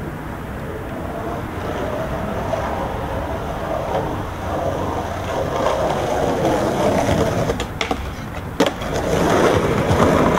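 Skateboard wheels rolling over rough concrete, the rumble growing louder, with a few sharp clacks of the board about eight seconds in.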